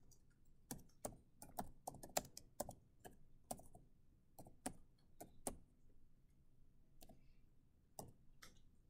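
Faint computer keyboard typing: a run of irregular keystroke clicks, thinning out after about five seconds, with a few last keystrokes near the end.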